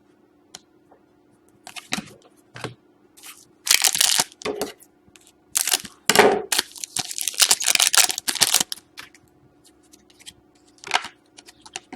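Trading card pack wrapper tearing and crinkling in bursts as a pack of hockey cards is opened and handled, the busiest stretch in the middle.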